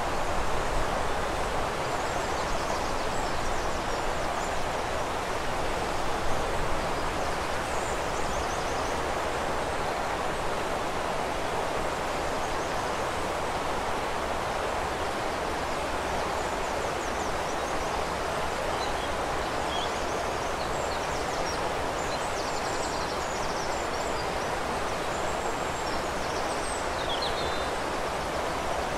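Steady rushing of river water, with small birds chirping faintly over it: a few short high calls in the first seconds and more near the end.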